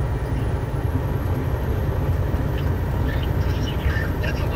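Steady low rumble of a semi-truck loaded with concrete barriers on a flatbed, running at highway speed: engine, tyre and wind noise. Faint short high squeaks come in over the last two seconds.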